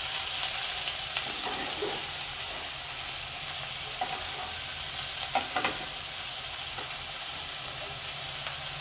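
Sliced onions frying in mustard oil in a kadai: a steady sizzle, with a few short clicks and scrapes of the spatula stirring them.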